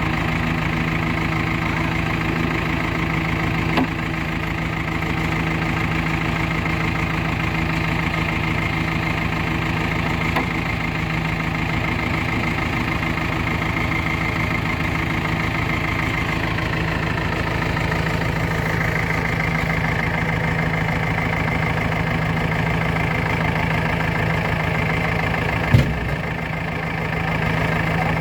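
JCB 3DX backhoe loader's diesel engine running steadily. A light knock comes a few seconds in, and a sharp, louder knock near the end.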